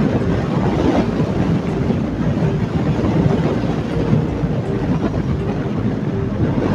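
Suzuki motorcycle engine running at a steady cruise, mixed with wind rush, heard through a microphone fixed inside the rider's helmet.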